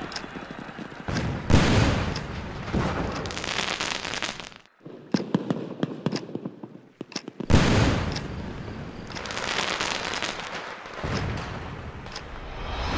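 Fireworks going off: loud booms about a second and a half in and again about seven and a half seconds in, each followed by a noisy wash, with a run of sharp crackling pops in between.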